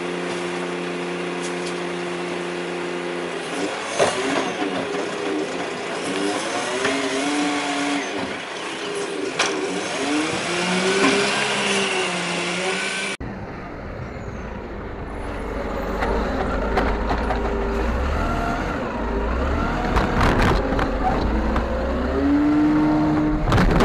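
Rubbish truck engine running and revving up and down, with a few sharp knocks. About 13 seconds in it cuts to another truck recording with a deeper engine rumble that also revs.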